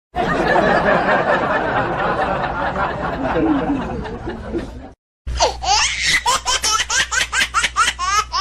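Laughing sound effects: a dense, overlapping laugh from many people for about five seconds, which cuts off sharply. After a short gap comes one high-pitched laugh in quick, even pulses, several a second.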